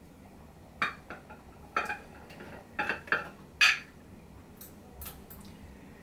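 Small glass bottle and brush being handled on a hard worktop: a run of about ten light clinks and knocks over some four seconds, the loudest about three and a half seconds in.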